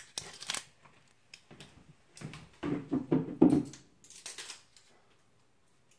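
Rustling and a few knocks from an onion being handled at the kitchen counter, in short separate bursts, the loudest knock about three and a half seconds in.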